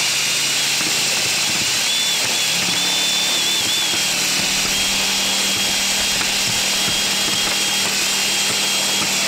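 Cordless drill spinning a cut-down, bevelled Allen key inside a through-hull hole in a fibreglass hull, reaming out the wooden core around the hole; the motor runs steadily, settling into an even hum about two seconds in.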